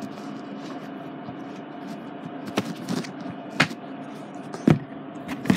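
Handling noise from a CD case and booklet: four sharp clicks and knocks in the second half over a steady low hum.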